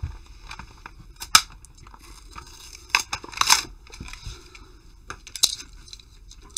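Hot Wheels blister pack being torn open by hand: the clear plastic blister crinkles and cracks in short bursts as it is pulled off the card, with a sharp crack about a second and a half in.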